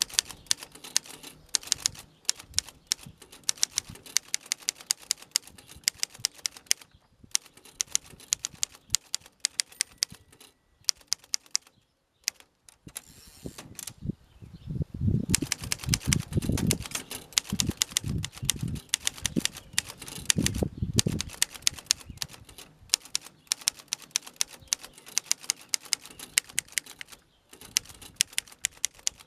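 1920 Underwood Standard No. 5 manual typewriter being typed on: rapid, sharp key strikes of the typebars against the platen. After a brief pause near the middle come several seconds of heavier, lower thuds, then the quick keystrokes resume.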